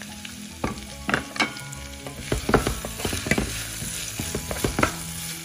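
Sliced onions sizzling as they fry in oil in a coated frying pan while a spatula stirs them, with repeated scrapes and knocks of the spatula against the pan from about half a second in.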